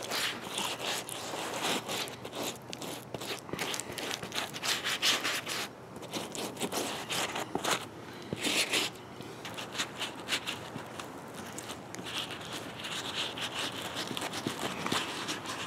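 A plastic-bristled dish brush scrubbing a soft beeswax and petroleum jelly mixture into a leather boot, in quick repeated rubbing strokes with a couple of brief pauses.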